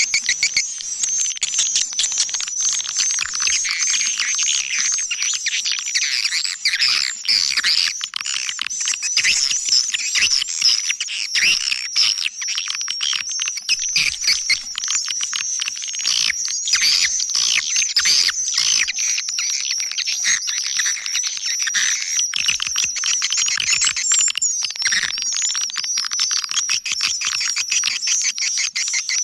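Dense, continuous chorus of swiftlet chirps and twittering, sharp clicks mixed through it, with almost no low end.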